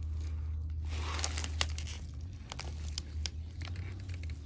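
Dry leaf litter and twigs crackling and rustling under a large snakehead and the fish grip holding it, with a dense burst of crinkling about a second in and several sharp snaps, over a steady low hum.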